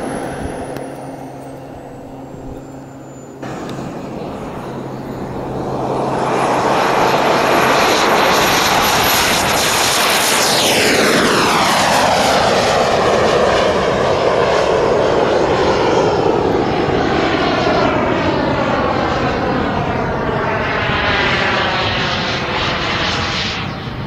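Model jet turbine of a radio-controlled Mirage 2000 (30 kg thrust): a high whine that sags at taxi power, then rises about six seconds in as the turbine spools up to full power. It becomes a loud jet rush as the model flies past, with a sweeping falling tone, and a second pass near the end.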